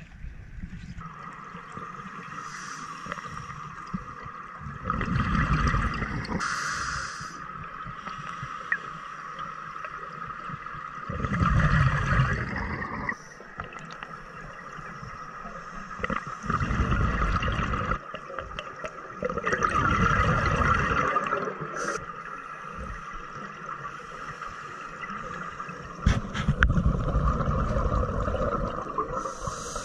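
Scuba breathing heard underwater: regulator breaths and bursts of exhaled bubbles gurgling every few seconds, over a steady high hum.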